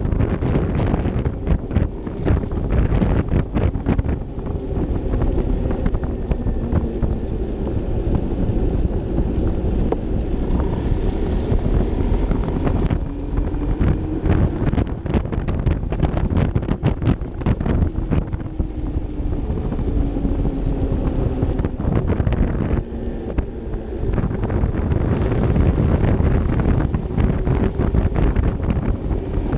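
Wind buffeting the action camera's microphone on a moving Vespa LXV 150 3V scooter. Under it the scooter's single-cylinder engine runs, its pitch rising and falling with the throttle on the winding road.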